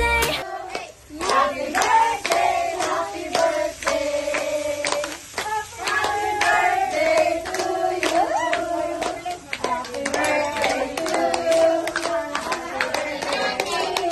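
A small group singing the birthday song together, adults and children, with steady hand clapping in time, about two or three claps a second.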